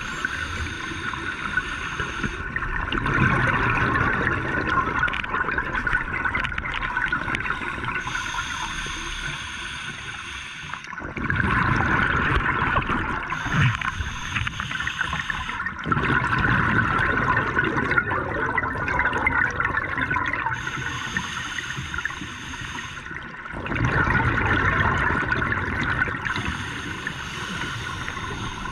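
Scuba diver breathing through a regulator underwater: a hissing inhale through the regulator alternates with a rush of exhaled bubbles, about every five to six seconds.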